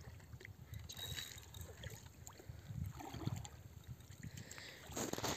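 Shallow lake water splashing and lapping around a wading angler's legs as he plays a hooked carp, over a low rumble. The splashing swells louder near the end.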